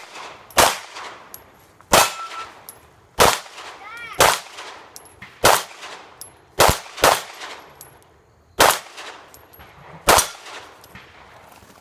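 Pistol shots fired one at a time at a steady pace, about nine in all, roughly a second or more apart, with two in quick succession near the middle.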